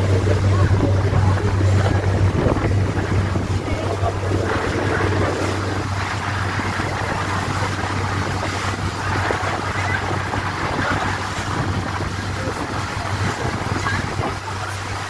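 Motorboat under way on open sea: a steady engine drone under rushing water from the hull and wake, with wind buffeting the microphone.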